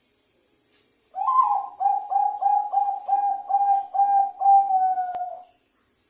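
Zebra dove (perkutut, Bangkok song type) cooing: a higher opening note, then a quick run of about nine short repeated coos, ending on a longer, slightly falling note, some four seconds in all. Crickets chirp steadily underneath.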